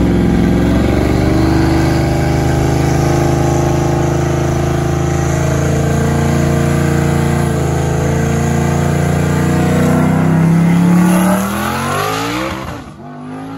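Ford Mustang's engine held at steady revs on the drag-strip start line, then launching near the end and pulling away down the track, its pitch falling and its sound fading as it goes.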